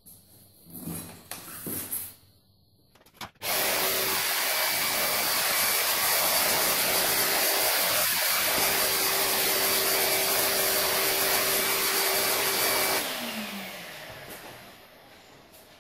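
Numatic George vacuum cleaner switched on about three and a half seconds in, running steadily with a held whine as its hose nozzle is drawn across a workbench top. Switched off near the end, its motor winds down with a falling whine.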